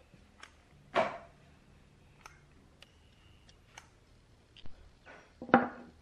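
Scattered light metallic clicks and ticks of steel tweezers and small tweeter parts against a wooden workbench, with a louder tap about a second in and a short cluster of knocks near the end.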